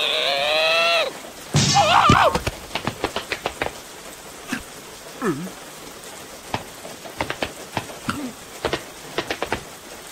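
A cartoon larva's wordless shout, falling in pitch, for about a second, then a second wavering cry. After that comes rain: a steady hiss with many sharp, scattered drips, and a couple of small squeaks.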